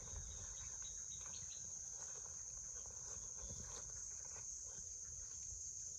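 A steady, high-pitched chorus of insects chirring without a break, with faint scattered clicks and a low rumble underneath.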